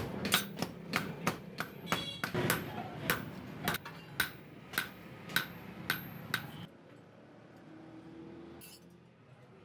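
Hammers striking a hot knife blade on a steel anvil during hand forging: sharp blows about two a second that stop about two-thirds of the way through, leaving only faint low sounds.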